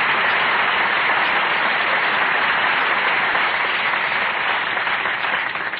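Studio audience applauding steadily, dying away near the end, in an old band-limited radio broadcast recording.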